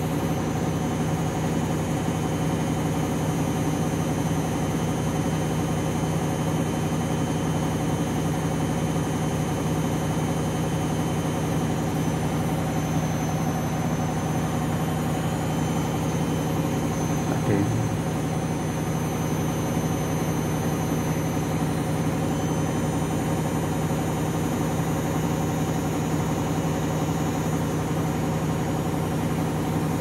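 Candy front-loading washing machine drum spinning with two bathrobes during a spin cycle: a steady motor hum with a faint high whine, holding at an even speed, with one brief knock a little past halfway.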